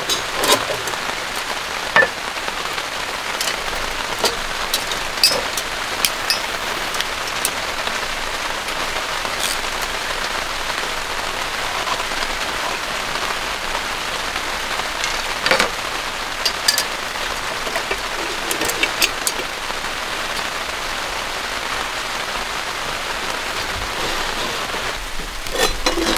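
Heavy rain falling steadily on a tent, heard from inside, with a few scattered sharp clicks and taps. Near the end comes a short clatter of dishes and cookware being handled.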